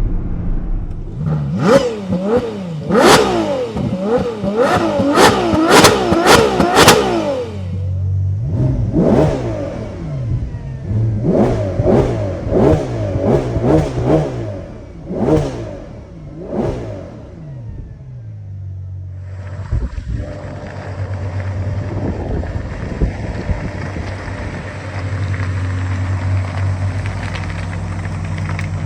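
Ferrari 12Cilindri's naturally aspirated V12 being revved hard in quick blips, with the pitch shooting up and dropping back repeatedly for the first quarter-minute. It then settles into a steady run.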